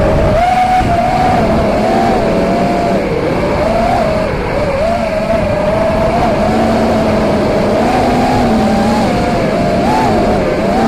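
Electric motors and propellers of a small radio-controlled aircraft whining steadily, the pitch wavering up and down with the throttle, over a low wind rumble on the microphone.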